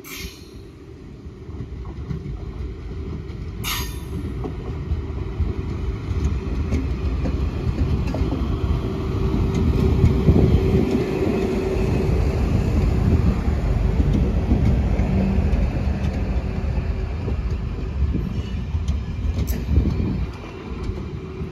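Electric multiple-unit passenger train running past at close range, its rumble building over the first several seconds and then holding loud, with a steady hum running through it. Two sharp clicks cut through in the first four seconds.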